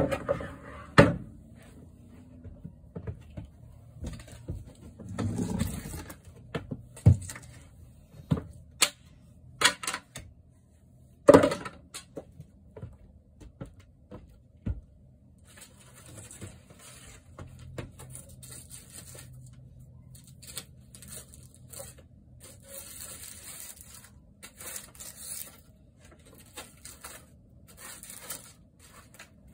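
Thin wooden wall paneling being pulled off and broken up by hand: scattered knocks and clatters of loose strips for the first dozen seconds, then from about halfway a run of short, scratchy rustling and scraping noises.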